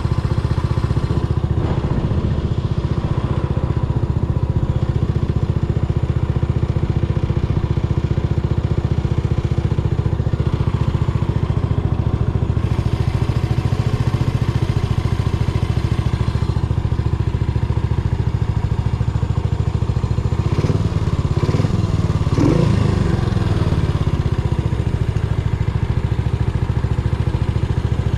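Yamaha SR400's air-cooled single-cylinder four-stroke engine running steadily, with a brief rise and fall in pitch a little past twenty seconds in.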